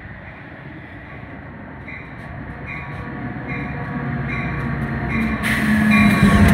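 Metra diesel locomotive approaching and passing close by, its engine and wheels growing steadily louder, with a bell ringing about once a second from about two seconds in. Near the end the locomotive draws level in a loud rush.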